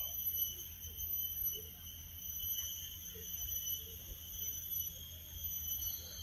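Steady, high-pitched drone of insects in the trees, unchanging in pitch, over a low rumble on the microphone.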